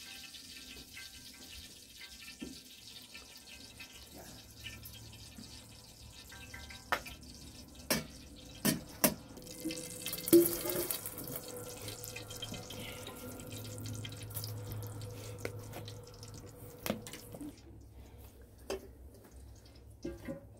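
Water being poured and splashed in and out of metal kettles, with scattered clinks and knocks of the kettles, lids and a vacuum flask. The loudest knock comes with a splash about ten seconds in.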